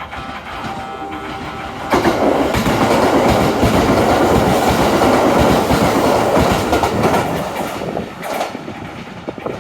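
Kintetsu train passing through the station without stopping. It comes in about two seconds in as a sudden loud rush of wheels on rails, stays loud for about six seconds, then fades. Before it arrives, a level-crossing warning bell rings faintly.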